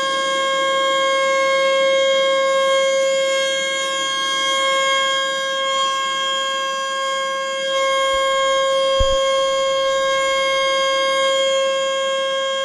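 American Signal Corporation T-121 outdoor warning siren sounding a loud, steady single tone, the alert signal, held without rising or falling. A brief low bump comes about two-thirds of the way through.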